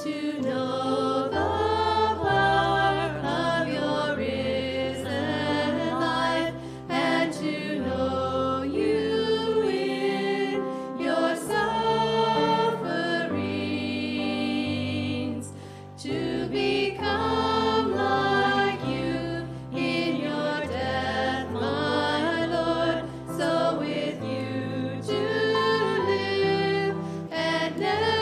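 A small group of singers performing a hymn in held, wavering notes over a low instrumental accompaniment, with short breaks between phrases.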